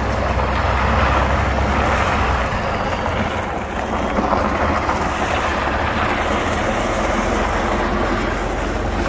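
Delivery truck's engine running as the truck creeps forward with one wheel seized by stuck brakes. The deep engine drone eases off about two and a half seconds in, leaving a steady noisy rumble.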